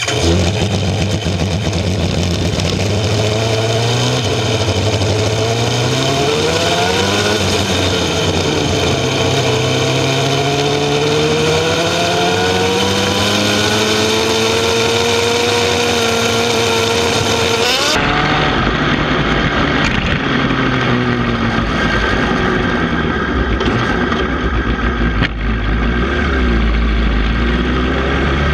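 Sport motorcycle engines running on a group ride, the nearest one's pitch rising slowly as it accelerates and then dropping. The sound changes abruptly about two-thirds of the way through.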